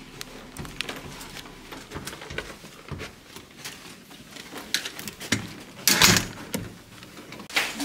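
Scattered clicks and rustles of someone moving about in a small carpeted room, then a door's lever handle turned and the door opened, a louder clatter about six seconds in, with another sharp clack near the end.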